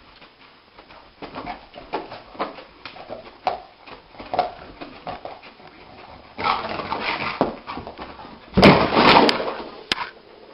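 Dog-like whimpering and yelping: short, irregular calls, then a harsher, louder outburst near the end.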